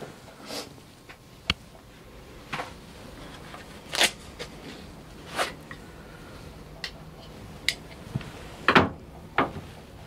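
Scattered clicks, light knocks and short scrapes of hand tools and fixture parts being handled at a tub-and-shower valve, about ten of them, the loudest around the middle and near the end.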